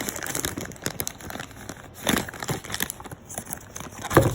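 Parcel packaging crinkling and rustling as it is handled and opened, with irregular crackles and a couple of louder bumps, one about two seconds in and one near the end.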